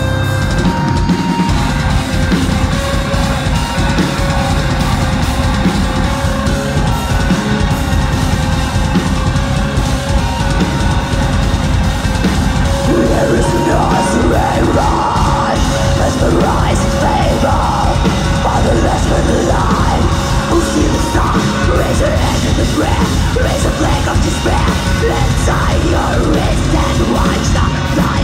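Progressive metal band playing live: distorted electric guitars, bass guitar and a drum kit. A woman's vocals come in about halfway through.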